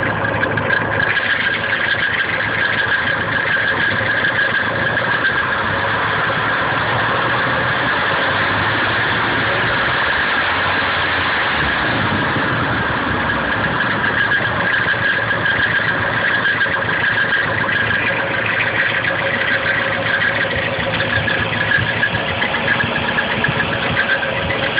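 Nissan KA24DE four-cylinder engine idling steadily, with a high squealing tone over a fine rattle from the front timing cover. The owner suspects the timing chain or its guides.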